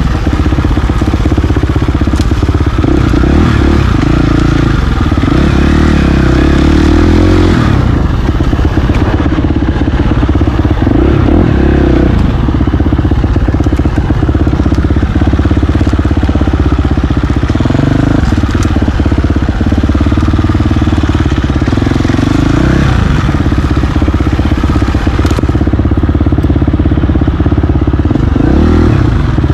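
KTM 350 XC-F dirt bike's four-stroke single-cylinder engine running under load, revving up and down over and over with throttle and gear changes.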